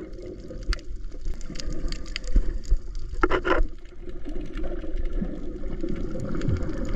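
Muffled water sloshing and gurgling picked up by a camera held underwater, with scattered faint clicks and a brief louder burst about three seconds in.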